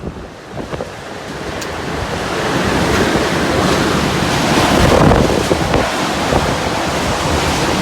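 Violent typhoon wind gusting and buffeting the microphone: a loud rushing that builds over the first three seconds and then stays strong.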